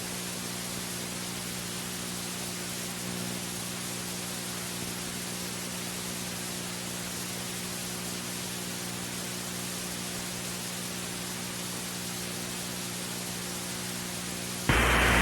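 Steady hiss with a low electrical hum and its overtones: dead air on the emergency alert audio between repeats of the message. It gives way to louder sound near the end.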